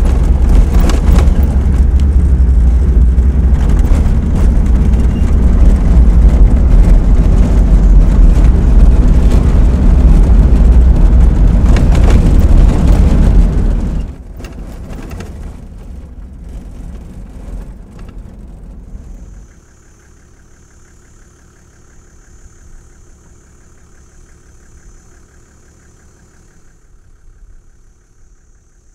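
4x4 vehicle driving on a rough dirt track: a loud, low, steady rumble. About halfway through it drops sharply to a much quieter sound, and a few seconds later falls away almost entirely, leaving only a faint, steady high-pitched whine.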